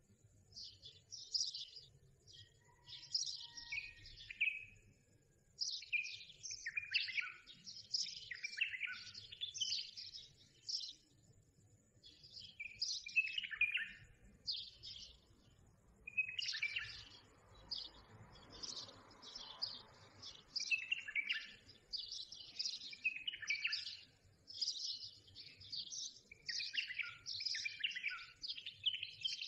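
Small birds chirping and singing: many quick, short notes sweeping downward in pitch, coming in runs with brief pauses.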